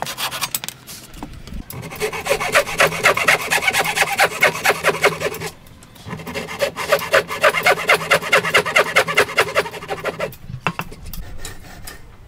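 Hand saw cutting into a clamped wooden block in rapid, regular back-and-forth strokes. It runs in two spells with a brief break between them, and the strokes are fainter near the end.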